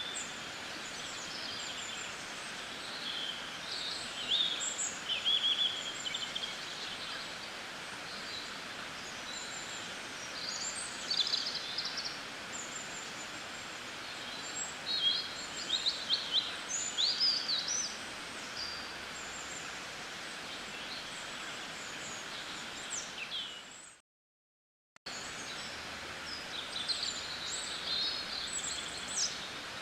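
Birds chirping and trilling in many short calls over a steady outdoor hiss. The sound cuts out completely for about a second, some three-quarters of the way through.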